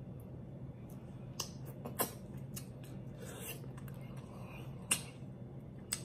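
Mouth sounds of eating lobster with the fingers: a handful of short, wet lip smacks and sucks, loudest about two seconds in and near five seconds, over a faint steady hum.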